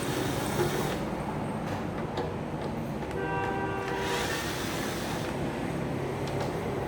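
Steady background traffic noise, with a horn sounding once for about a second, around three seconds in.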